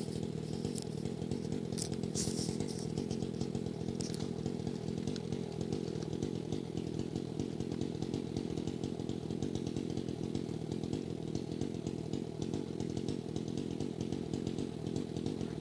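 Dolmar chainsaw running steadily with no change in revs.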